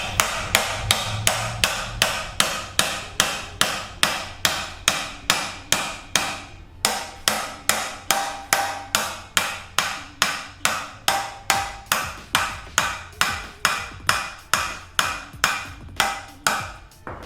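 Hammer striking steadily, about two and a half blows a second, on an old wheel bearing used as a driver to tap a new front wheel bearing into its housing; each metal-on-metal blow rings briefly.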